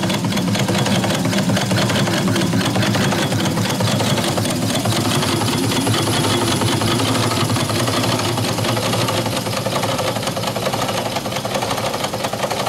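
The twin small steam engines of a quarter-scale steam donkey running steadily, a rapid, even mechanical beat of cranks and valve gear with the steam exhaust going up the stack.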